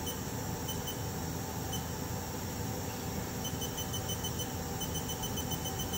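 Haas TM2 CNC mill with its spindle commanded up to 4,000 RPM: a steady, fairly quiet machine hum. A thin high-pitched tone sounds in a few short beeps early on, then repeats steadily from about halfway.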